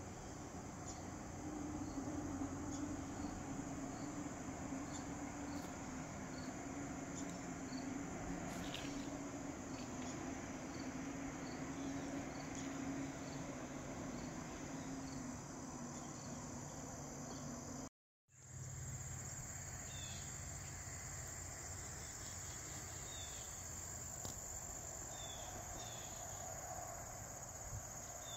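Crickets chirping in a steady, evenly repeating chorus over a low background hum. The sound cuts out completely for a moment about two-thirds through, and after that a few short falling chirps come through.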